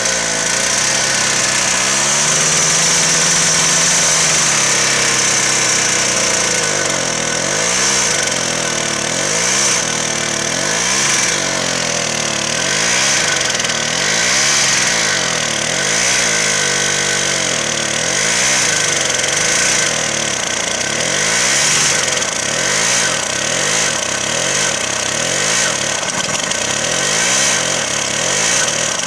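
Tractor engine running close up, its speed rising and falling over and over, about every second and a half, from about seven seconds in.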